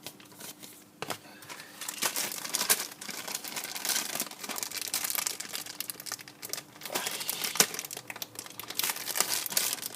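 Packaging from a toy box being handled: paper leaflets and plastic wrapping crinkling and rustling in irregular crackles, quieter for the first second.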